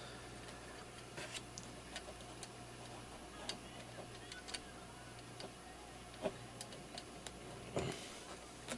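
Scattered faint small metallic clicks and taps, irregularly spaced, as acorn nuts are handled and threaded onto the bolts of an LED light's mounting bracket.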